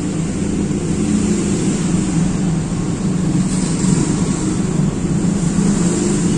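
A steady, fairly loud low rumble, like a motor running.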